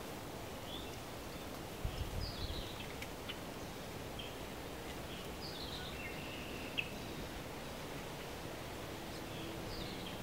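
Wild birds giving short, falling calls scattered through, over a steady outdoor background hiss. There is a brief low rumble about two seconds in.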